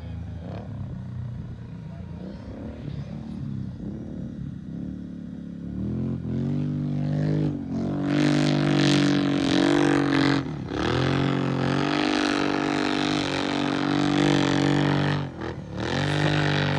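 Kawasaki KFX sport quad with a far-from-stock aftermarket exhaust, revving hard. It is fainter at first, then loud from about six seconds in, with the engine speed rising and falling and briefly dropping off about three times.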